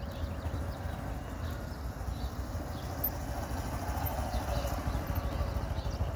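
Small commuter motorcycle engine running at low speed with a rapid putting beat as the bike is ridden slowly through a cone course, a little louder around four seconds in as it passes close.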